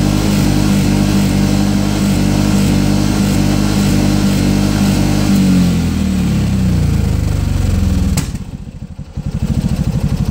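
Piaggio MP3 500 scooter's single-cylinder engine idling roughly: it runs steadily, sags in pitch, then falters with a click about eight seconds in and comes back with an uneven, pulsing beat. This is the rough running that the owner suspected came from bad fuel.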